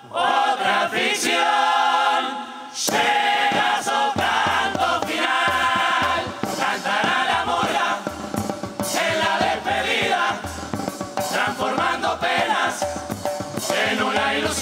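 Murga chorus singing together in full voice. A low drum beat joins under the voices about four seconds in.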